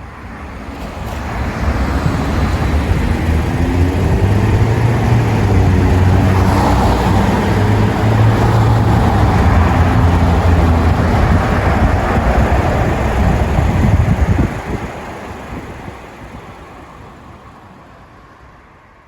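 Motor vehicle road noise: a steady rumble that fades in, holds, then drops away and fades out over the last few seconds.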